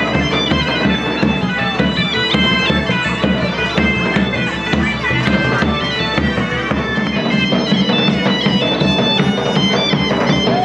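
Bagpipes played with a drum by a medieval-style street band: a steady drone under a stepping melody, with a regular drumbeat underneath.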